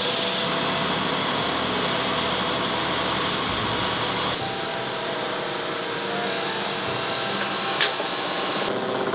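Steady whirring of rotary grinding and polishing machinery working stainless frying-pan bodies, with several constant hum tones under a hiss of abrasion. The machine sound changes about four seconds in, and a single sharp click comes near the end.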